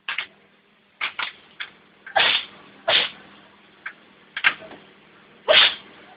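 A cat sneezing again and again: about ten short, sharp sneezes with pauses between, the loudest about two, three and five and a half seconds in.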